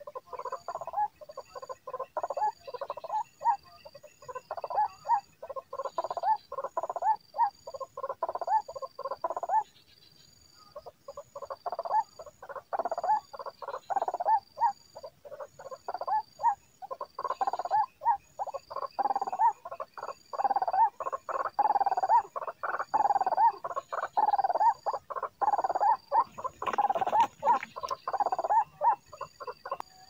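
White-breasted waterhen (ruak-ruak) calling: a long run of rapid, harsh, croaking notes repeated over and over, breaking off for about a second around ten seconds in. A faint, even, high pulsing ticks along behind it.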